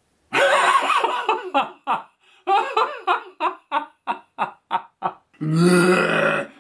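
A man laughing: a first burst of laughter, then a run of short laughs, about four a second, that trail off. Near the end comes a long held voiced sound.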